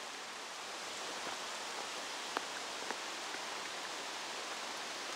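Steady rushing of the flooded Ottauquechee River in spate, mixed with rain and wet leaves rustling in the trees, with a couple of faint ticks about halfway through.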